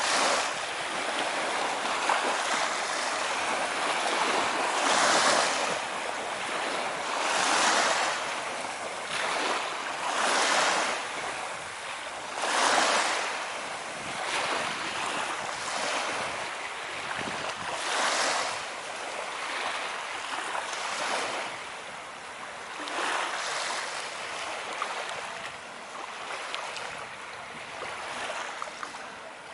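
Sea water swishing and splashing in surges every two to three seconds over a steady hiss, growing fainter toward the end.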